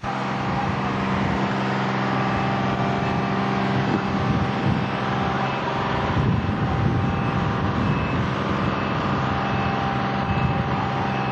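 Motor vehicle engines running steadily with a low hum, mixed with traffic noise. A faint high beep repeats at an even pace from about two seconds in.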